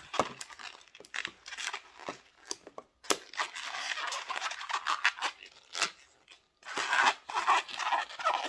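Latex twisting balloon being knotted and worked in the fingers: irregular rubbery rubbing, crackling and small snaps of the stretched latex, with a few squeaks near the end.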